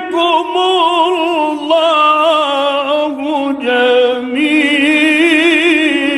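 A man reciting the Quran in the melodic tajweed style into a microphone. He holds long, ornamented vowels with a wavering vibrato, pausing briefly for breath twice.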